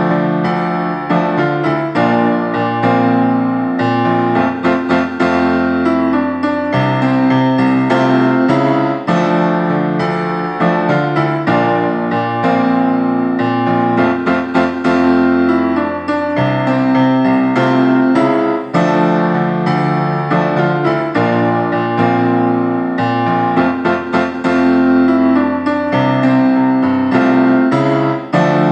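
Piano-style keyboard playing a song accompaniment: held chords that change every couple of seconds, with notes struck over them.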